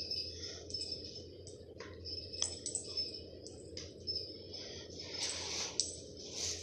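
Plastic bag and plastic sheeting crinkling as a cat's wand toy is dragged across them, in short rustles and clicks with a longer stretch of rustling about five seconds in. Faint high chirp-like notes come and go through it.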